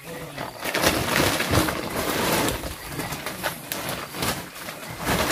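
Irregular rustling and scraping of a plastic tarp and woven sack as loose oil palm fruitlets are gathered and bagged by hand.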